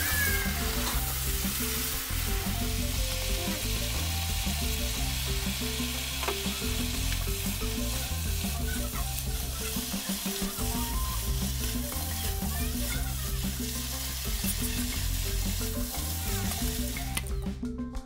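Water spinach sizzling as it is stir-fried in a wok, with the spatula stirring and tossing the greens, over background music. The sizzle stops near the end while the music carries on.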